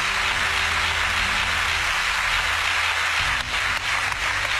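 Studio audience applauding steadily, a dense even clapping with no breaks.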